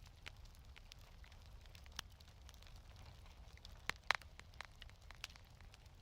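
Wood fire crackling in a fireplace: scattered sharp pops and snaps at irregular intervals, the loudest two close together about four seconds in, over a low steady rumble.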